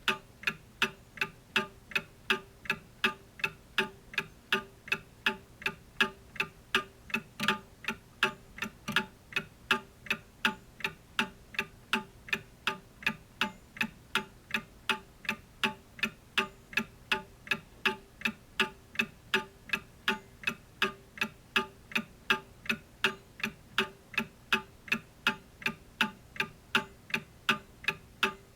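A clock ticking steadily and evenly, about two and a half sharp ticks a second.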